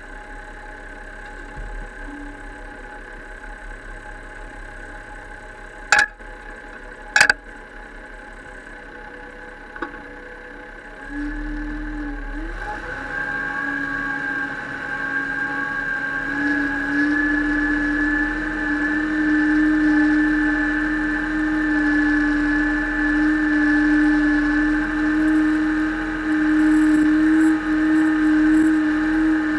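Case IH tractor's diesel engine ticking over steadily, with two sharp clicks about six and seven seconds in. About eleven seconds in it revs up and gets louder, rising again a few seconds later, and runs at higher revs as the tractor drives along.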